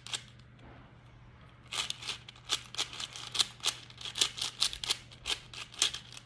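Layers of a YuXin 4x4 speed cube being turned while a parity algorithm is executed: a quick run of sharp plastic clacks, about three a second, starting after a short pause about two seconds in.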